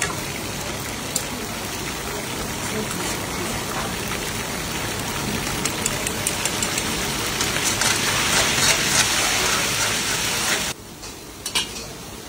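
Meat chunks frying in hot oil in a steel karahi: a steady sizzle with fine crackling that grows louder, then drops off suddenly near the end, followed by a few clinks of a metal ladle.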